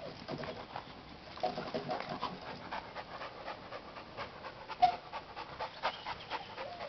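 Boxer dog panting hard in quick, repeated breaths, worked up from tugging at a rope toy, with one short, louder sharp sound a little under five seconds in.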